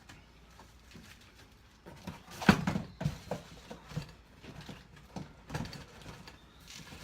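Knocks and rustling of packed cardboard boxes and parts being handled inside an opened cargo carrier box, with one sharp loud knock about two and a half seconds in and smaller knocks after it.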